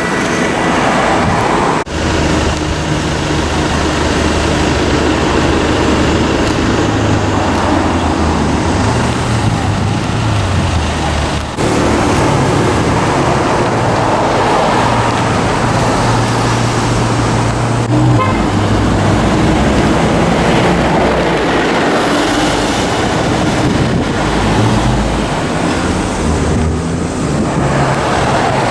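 Car engines running at low revs in slow street traffic, a steady low drone that shifts slowly in pitch over road noise.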